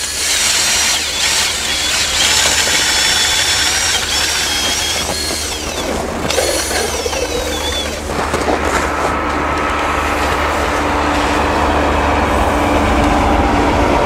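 Hovercraft engine and propeller running with a high whine, the noise growing steadily louder toward the end as the craft approaches.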